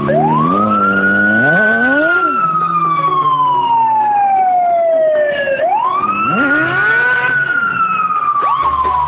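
Loud emergency vehicle siren wailing. Its pitch climbs quickly, then sinks slowly over about five seconds. It does this twice, with a fresh rise about halfway through.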